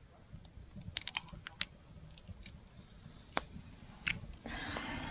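Scattered light clicks and ticks from cooking at a small wood-burning tent stove: a quick cluster about a second in, single ticks after, then a soft steady hiss that starts near the end.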